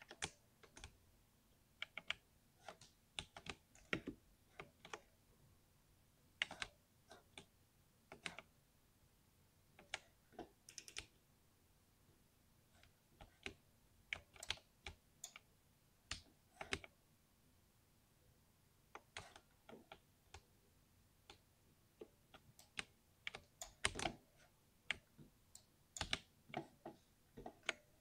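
Typing on a compact mechanical keyboard: keystrokes in irregular bursts with short pauses between them, each key giving a deep, thocky popping click.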